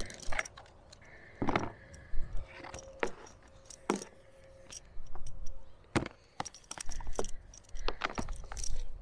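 Antenna coax cable being uncoiled and handled: irregular sharp clicks and taps from its metal connector, with the cable rustling as it is pulled through the hands.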